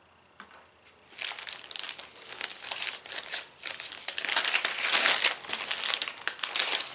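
Crinkling, rustling handling noise with many small crackles, as of plastic being moved and rummaged through. It starts about a second in and grows louder.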